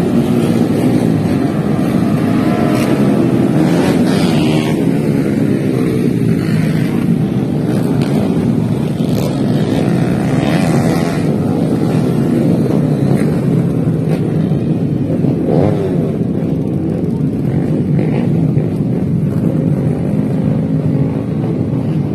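Several 125 cc four-stroke underbone racing motorcycles running flat out together, their engine notes overlapping and sweeping up and down in pitch as they rev and pass. One goes by about four seconds in with a falling pitch.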